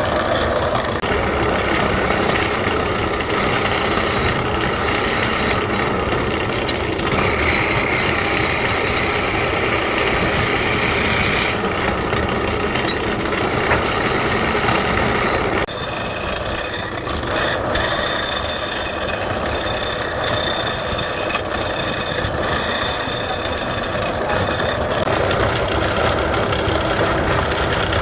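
Wood lathe running with steady machine noise whose tone shifts several times, with a brief dip about sixteen seconds in and a thin high whine after it.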